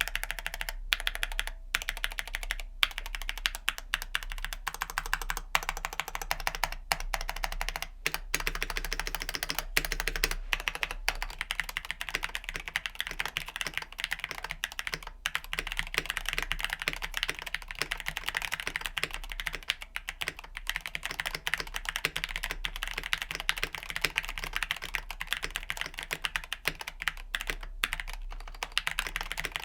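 Mechanical keyboard with stock, unlubed Gateron Ink Black V2 linear switches being typed on fast and without a break: a dense stream of keystrokes.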